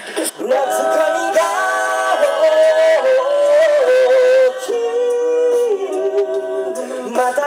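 An a cappella vocal group singing through microphones, with no instruments. Several voices hold long notes together, and the melody steps down in pitch a little after halfway.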